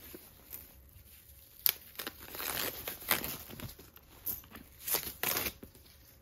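Plastic protective wrapping crinkling and tearing as it is pulled off a handbag's chain strap, in a run of rustling bursts from about a second and a half in to just past five seconds, starting with a sharp snap.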